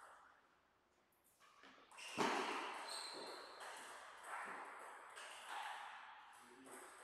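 A sudden loud thump about two seconds in, then several softer knocks, each ringing out in a large hall.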